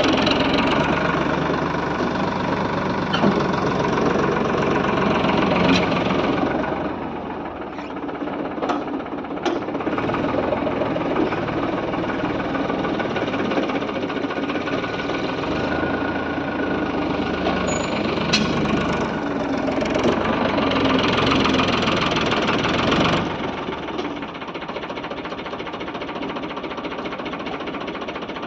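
Farmtrac 60 tractor's diesel engine running on a test drive after brake work. It eases off about a quarter of the way in, picks up again past the middle and settles lower and steadier near the end, with a few sharp clicks or knocks along the way.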